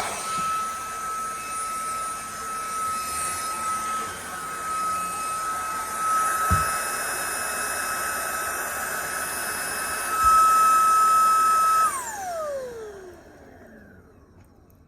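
Vacuum cleaner running with a steady high whine. It grows louder for a couple of seconds, then is switched off, the motor's whine falling in pitch as it spins down. There are a couple of short thumps while it runs.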